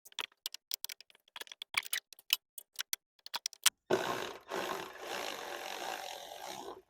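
A string of small clicks and taps, metal tools being handled, then an impact wrench running on a socket for nearly three seconds, with a short break near its start, before cutting off suddenly.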